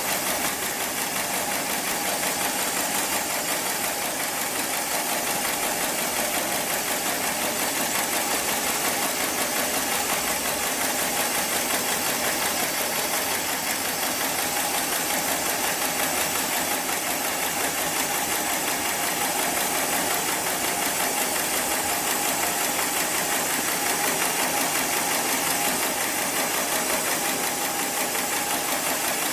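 Industrial programmable pattern sewing machine for heavy sling webbing running steadily through a stitching cycle, a continuous rapid mechanical chatter of the needle drive.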